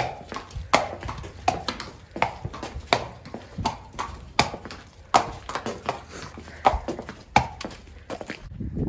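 A horse's hooves clip-clopping in an even rhythm, a sharp strike about every three-quarters of a second with softer ones between. Near the end the hoof beats stop and a low rumble takes over.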